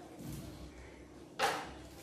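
Hands handling plastic packaging and a cable while unboxing a home theatre: a soft low thud early on, then one short, sharp rustle of plastic about a second and a half in.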